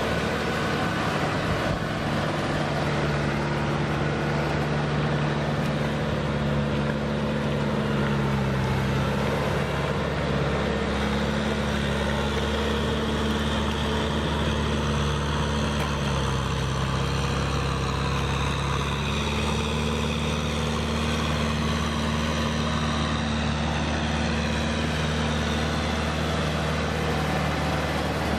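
Steady engine hum: a motor running at an even speed, its low drone shifting slightly in pitch now and then.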